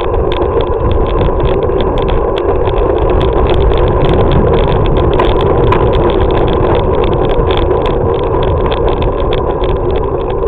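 Steady rush of riding noise from a moving bicycle, wind and road rumble on the microphone, with many small clicks and rattles throughout.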